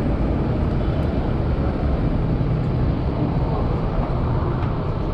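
Street traffic: a steady low rumble of cars and a bus running along the road.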